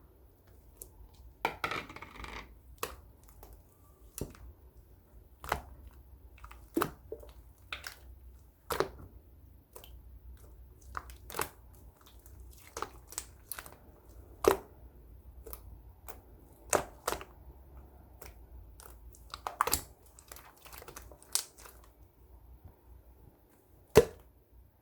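Irregular sharp clicks and taps, one every second or so, with a brief patch of rustling about two seconds in and the loudest click near the end.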